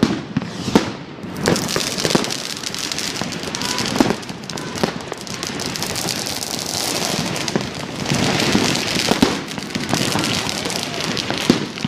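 New Year's Eve fireworks: several sharp bangs in the first second, then dense, continuous crackling from many firecrackers and crackling shells, with scattered bangs and a few faint whistles.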